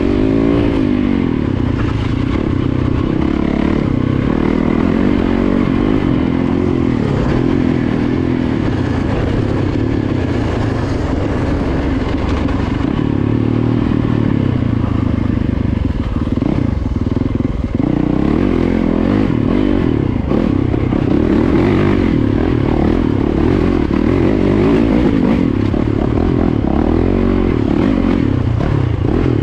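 Yamaha YZ450FX dirt bike's single-cylinder four-stroke engine, heard from on the bike, revving up and down with the throttle as it rides a rough dirt trail.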